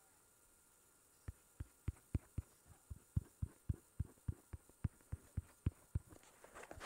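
Short, dull taps on a tablet's touchscreen, a few a second and unevenly spaced, starting about a second in, as a finger or stylus draws pencil strokes; a soft rustle rises near the end.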